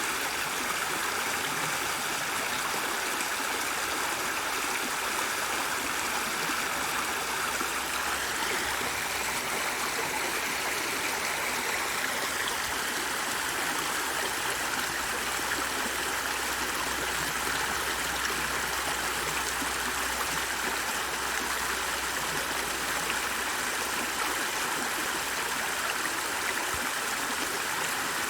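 Water of a flowing stream running steadily.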